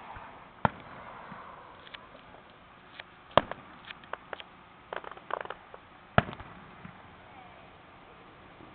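Aerial firework shells bursting: three sharp booms about three seconds apart, the last the loudest, with smaller pops and crackles between them.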